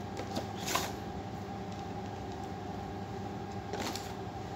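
A steady mechanical hum with several fixed tones, with a few brief rustles and taps of a cardboard box and packaging being handled, the loudest about a second in and near the end.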